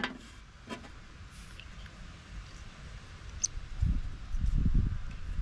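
Small clicks and light squeaks from a small priming petcock being handled and worked with the fingers, starting with a sharp click. About four seconds in, a low irregular rumble comes in.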